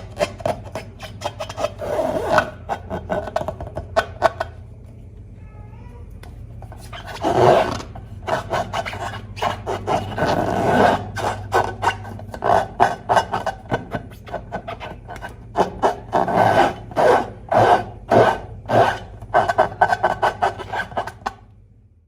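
Hands rubbing, squeezing and squishing rubber balloons and slime, with a dense patter of short crackles and clicks. It goes quieter for a couple of seconds about a quarter of the way in, then picks up again.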